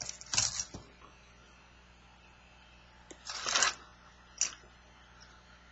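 Small plastic figure keychains being handled: a short burst of clattering and rustling at the start, another about three seconds later, then a single click.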